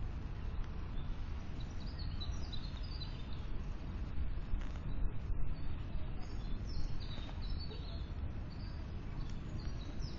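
Small birds chirping with short, high calls in scattered runs, over a steady low background rumble.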